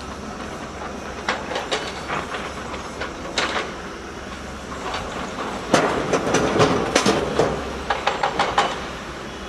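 Diesel excavators running steadily, with irregular clattering knocks of rock and steel that grow denser and louder from about six seconds in until near the end.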